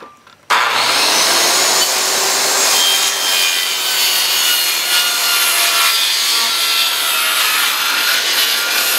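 DeWalt circular saw starting about half a second in and cutting lengthwise along a pine board, ripping off a strip about a quarter inch wide. It runs at a steady, loud level.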